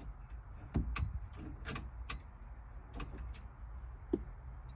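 Irregular light metallic clicks and ticks of bolts and hand tools being worked on a Jeep roll bar mount as the bolts are started straight to avoid cross-threading, with a dull knock just under a second in.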